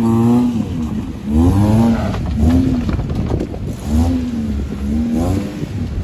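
Maruti Suzuki Gypsy 4x4's engine revving in repeated bursts under off-road driving, its pitch rising and falling about five times.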